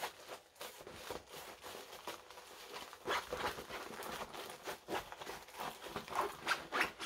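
Diamond Dotz kit's cardboard box and plastic packaging being handled and opened: irregular crinkles, rustles and light taps, with a couple of louder ones about three and six seconds in.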